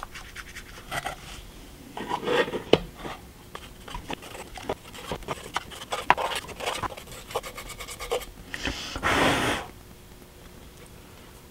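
A stiff brush scrubbing against chalk pastel sticks to pick up powder, then brushing it onto a paper-covered model roof: dry scratching and rubbing with many small ticks. A louder rushing burst, about a second long, comes near the end.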